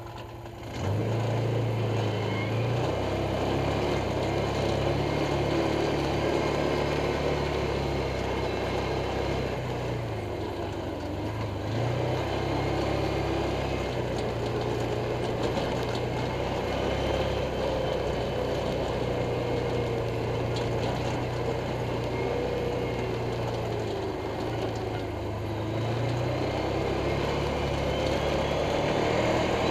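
Off-road vehicle engine pulling away from idle about a second in, then running under varying throttle, its pitch rising and falling as it is ridden along a dirt trail.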